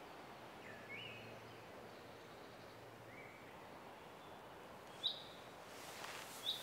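Quiet woodland ambience with small birds calling: a couple of faint rising whistled notes in the first few seconds, then short, sharper high chirps about five seconds in and again near the end, over a soft rustle.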